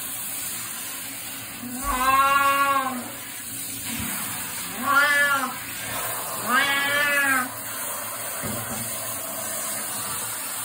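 Cat meowing three times, each a drawn-out call of about a second that rises and falls in pitch, over the steady hiss of a handheld shower spraying water onto it.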